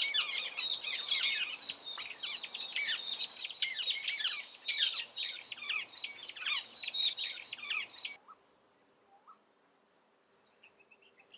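A dense chorus of small birds chirping, many quick high notes overlapping, which cuts off abruptly about eight seconds in. After that there is a faint steady high-pitched hum with a few faint chirps.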